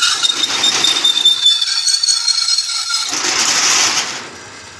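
Loud metalworking noise: a harsh, steady hiss with a faint high whine, which cuts off to a much quieter level about four seconds in.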